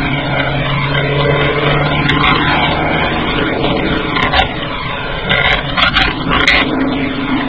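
Steady drone of a car driving, engine and road noise heard from inside the cabin through a dashcam microphone, with a couple of sharp clicks in the second half.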